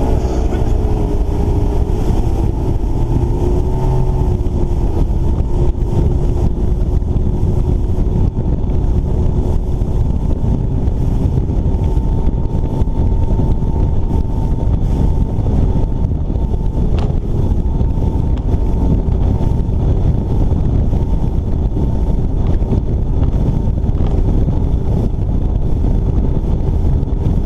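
Bass boat under way at speed: the outboard motor's steady whine over heavy wind buffeting on the microphone and the rush of water past the hull. The engine's pitch wavers a little in the first few seconds, then holds steady.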